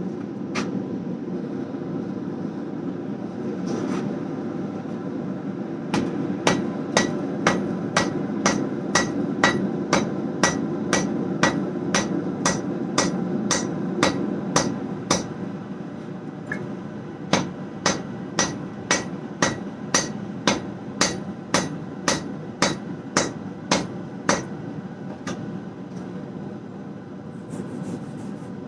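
Hand hammer striking a welding-hot damascus billet of 1095 and 15N20 steel on the anvil, forge-welding its first fold. The blows are fairly light and come at about two a second in two runs, with a short pause between them, over a steady low rushing noise.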